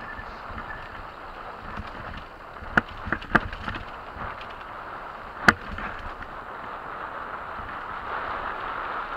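Mountain bike rolling fast down a dirt trail: steady tyre and wind noise, with a cluster of sharp knocks about three seconds in and a single louder knock just past halfway as the bike jolts over the rough ground.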